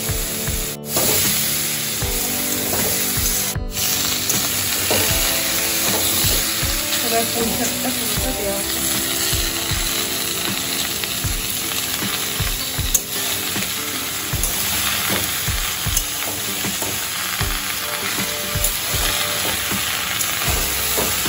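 A pan of brinjal, pumpkin, pui shaak greens and hilsa fish head sizzling as it cooks in hot oil. A spatula stirs it, scraping against the pan in short, irregular strokes.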